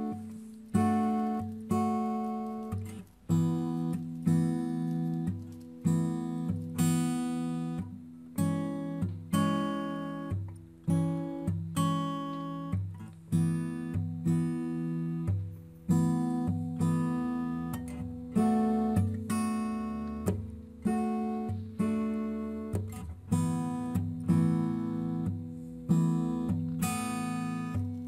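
Background music: acoustic guitar playing strummed and plucked chords in a steady rhythm, each chord ringing and fading before the next.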